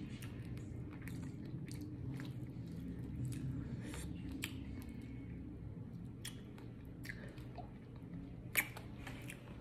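Close-up chewing of shrimp fried rice, with scattered wet mouth clicks and lip smacks and one louder smack near the end.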